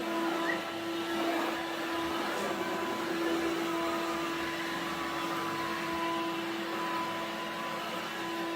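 Bosch Readyy'y Serie 2 20V cordless vacuum cleaner running steadily on carpet: a steady motor whine over the rush of suction air.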